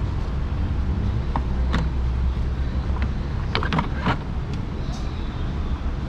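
Plastic engine cover on a Chevy Cruze's Ecotec engine being pried and pulled off its mounts by hand: a string of sharp plastic clicks and knocks, the busiest cluster a little past halfway. A steady low rumble sits underneath.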